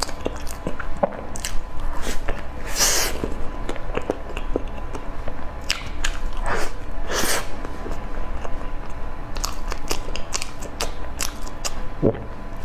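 Close-miked eating: a person chewing and biting food, with many small wet clicks and a few louder crunchy bursts, one about three seconds in and two more around the middle.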